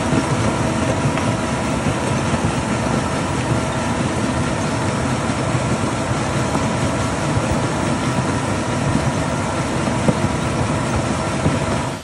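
Volumetric concrete mixer truck running steadily while its conveyor carries concrete down the discharge chute: a dense mechanical clatter with a faint engine hum.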